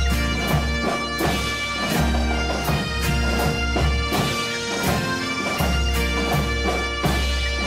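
Instrumental break in a rock ballad: bagpipes play the melody over their drones, with a steady drum beat and bass underneath.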